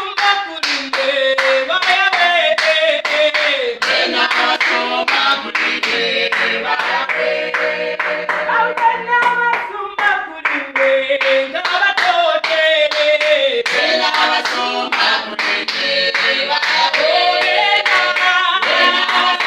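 A praise team's voices singing a worship song together, with hands clapping along to a steady beat.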